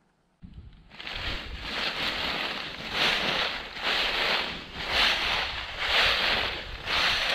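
Footsteps crunching through a thick layer of dry fallen leaves, about one step a second, starting about half a second in after near silence.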